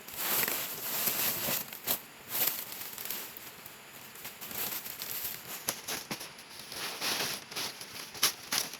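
Irregular rustling and crackling with sharp snaps, typical of dry plant material being handled. The loudest snap comes near the end.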